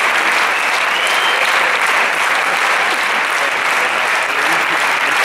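Large audience applauding steadily, a dense, unbroken sound of many hands clapping.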